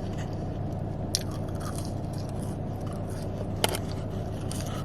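Close-up chewing and biting of McDonald's food, with scattered soft crackles and two sharp clicks, about a second in and again near the end, over a steady low hum inside the car.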